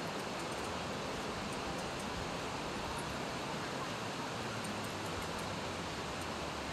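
Steady, even rushing of a river, with a few faint light clicks.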